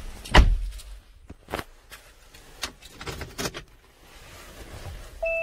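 Handling noises inside an SUV's cabin: a heavy thump about half a second in, then several sharp clicks and knocks. A steady chime-like tone begins right at the end.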